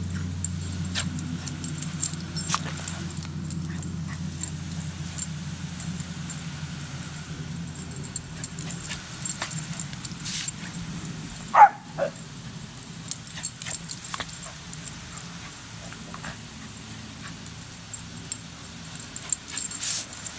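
Garden hose spraying water while a Jack Russell terrier plays in it. About halfway through, the dog gives one short yip that falls in pitch, with a second shorter one just after.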